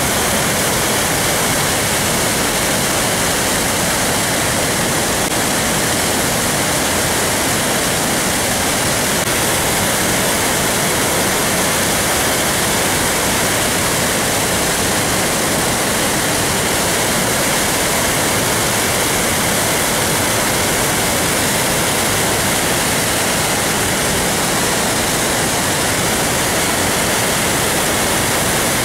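Water pouring through the open crest gates of a dam spillway during a heavy flood release: a steady, unbroken rush.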